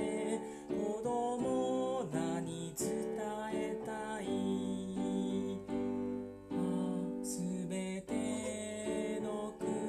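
A man singing a Japanese children's song while accompanying himself on an electronic keyboard, with sustained chords under the melody.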